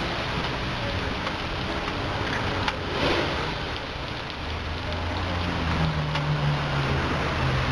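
Automatic car wash running: water spray hissing steadily as the rotating brushes work over a car, with a low motor hum underneath. A brief louder swell comes about three seconds in.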